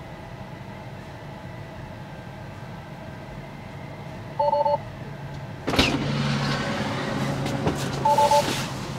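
Inside a parked Tesla Model 3: a short two-tone electronic chime. About six seconds in, the driver's door unlatches with a click and the frameless window glass drops a little, outside noise and rustling come in as someone gets into the seat, and the chime sounds again near the end.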